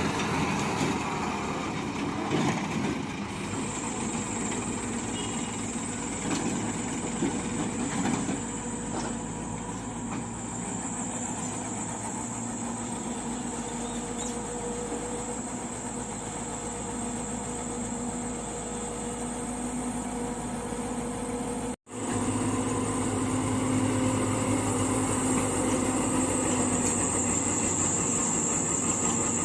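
Heavy diesel machinery engine running steadily under work, with a steady high whine over it. The sound cuts out for an instant about twenty-two seconds in and comes back a little louder.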